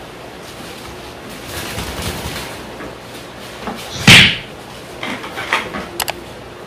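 Handling noise from unpacking a plastic-bagged pressure washer and its plastic parts: low rustling, one loud short bump with plastic crinkle about four seconds in, then a few light clicks.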